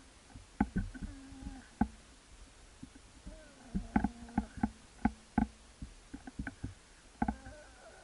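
A large animal moving close by in forest brush: irregular sharp snaps and knocks, bunched about four to five and a half seconds in, with a few short low pitched sounds between them.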